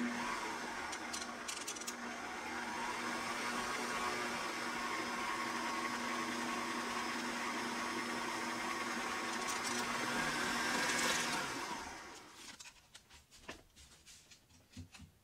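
Electric stand mixer running with its flat beater in a stainless steel bowl of cheesecake batter, a steady motor hum. It winds down and stops about twelve seconds in.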